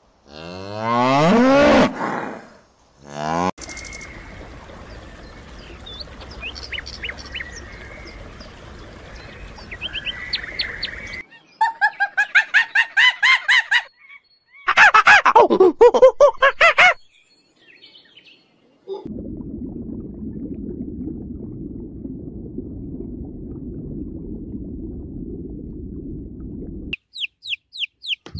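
A run of animal calls. A cow moos once with a rising pitch at the start. Birds chirp faintly over a steady haze, then a monkey gives rapid pulsed calls followed by a louder drawn-out call, a low steady noise follows, and near the end a downy chick peeps quickly, about four falling peeps a second.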